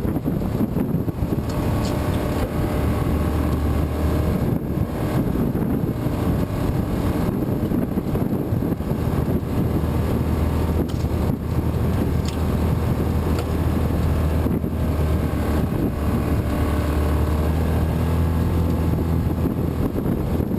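Yamaha Rhino side-by-side's engine running steadily as it drives along a dirt trail, a low hum with a little rise and fall in pitch.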